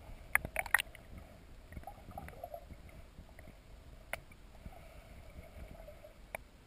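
Underwater ambience picked up by a submerged camera in a lake: a low steady rumble with scattered sharp clicks, a quick cluster of them about half a second in and single ones later.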